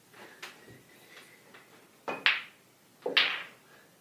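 Pool balls clicking on a table: a few faint taps, then two sharp clicks about a second apart, near the middle and towards the end.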